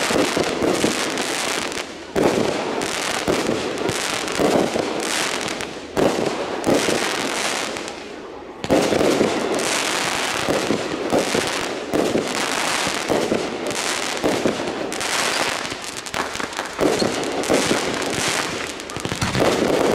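Consumer aerial fireworks going off in rapid succession: a dense run of bangs and crackling bursts, with sharp fresh volleys about 2, 6 and 9 seconds in.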